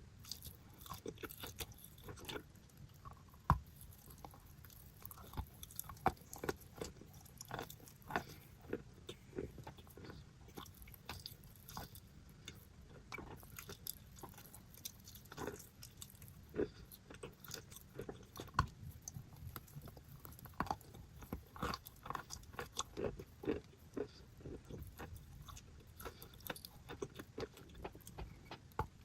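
Close-up chewing and biting of paste-covered chalk: irregular crisp crunches and crackles, with one sharp loud bite about three and a half seconds in.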